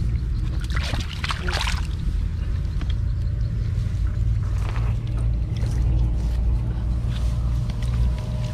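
Muddy water sloshing and splashing in a shallow woven bamboo basket as hands grab suckermouth catfish, with louder splashes about a second in and again near five seconds, over a steady low rumble.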